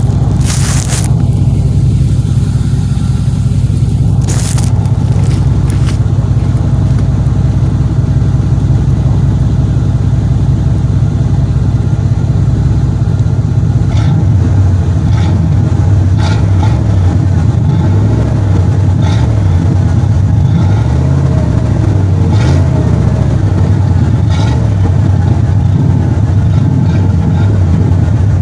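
1995 Chevy Silverado Z71's engine running through its exhaust, a steady, loud, deep note. About halfway through the low rumble turns uneven, with a few brief knocks or handling noises on top.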